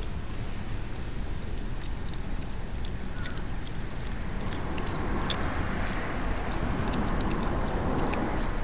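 A dog chewing grass: scattered small crunching clicks with rustling, thickening about three seconds in, over a steady low rumble.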